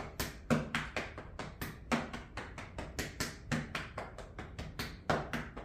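Fingertips tapping lightly and quickly on the belly and chest over clothing, about five or six taps a second, as lymphatic-drainage self-tapping.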